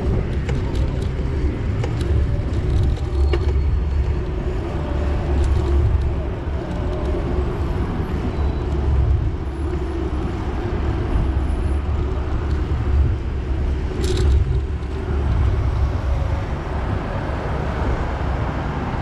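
Steady low rumble of a vehicle in motion, with a few faint clicks and a short hiss about fourteen seconds in.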